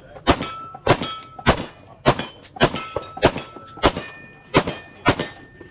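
Staccato pistol firing about ten shots at a steady pace, a little under two a second. Each shot is followed by the ring of a hit on a steel target.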